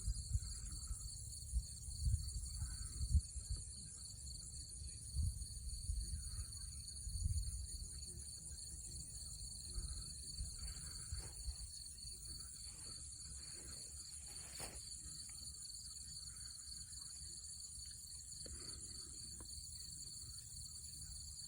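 Steady chorus of insects, trilling without a break in two high-pitched bands. Low rumbling thumps come and go during the first eight seconds.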